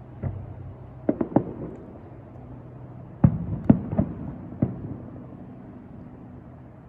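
Fireworks shells bursting in a run of booms: one early, three in quick succession about a second in, then four more from about three seconds in, each with a short rumbling tail. A steady low hum of a boat's engine runs beneath.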